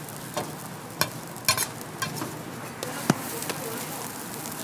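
Hotteok sizzling on a hot griddle, cooked without oil, under a steady hiss. Several sharp metal clicks break in as the stainless-steel disc presses are handled on the pancakes.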